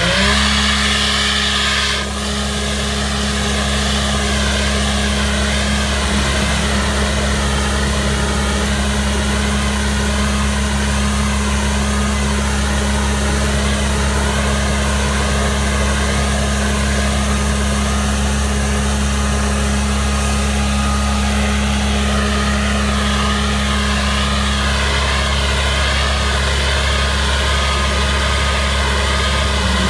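Spray-injection road patching machine running: its engine and air blower make a steady drone while asphalt emulsion and stone chips are blown out through the hand-held nozzle.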